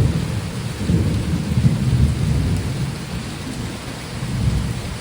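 Thunder rumbling over heavy rain: a low rumble that begins abruptly and swells again about a second in and near the end, over the steady hiss of downpour.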